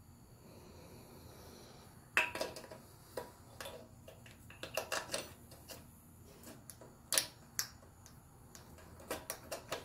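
Metal clicks and clinks of a solid rocker shaft assembly being worked into place by hand on an air-cooled Volkswagen Beetle cylinder head, its rocker arms lined up over the valve tips. It is quiet for about two seconds, then come scattered sharp clicks, the loudest about two seconds in and again about seven seconds in, with a quick run of small clicks near the end.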